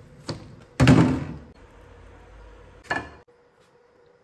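Kitchenware being handled: a loud thunk about a second in that rings on briefly, and a shorter knock near three seconds.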